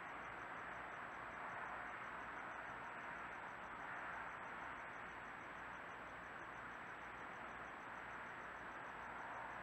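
Steady hiss of a trail camera's microphone and electronics, with a faint, thin high whine and a faint rapid even pulsing above it; no distinct sound from the rat or the traps.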